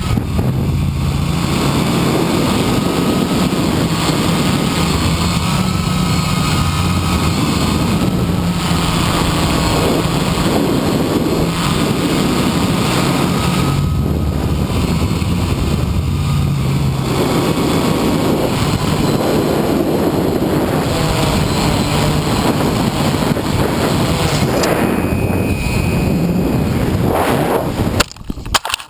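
FPV quadcopter's electric motors and propellers running in flight, a steady buzzing hum with a faint whine, picked up by the onboard camera along with wind noise. Near the end it crashes: the sound breaks into a few rough knocks and the motors cut out.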